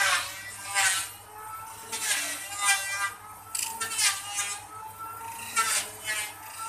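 A lathe chisel cutting grooves into a spinning wooden spindle. It gives a pitched scraping whine in repeated strokes, about one a second, each sweeping down in pitch.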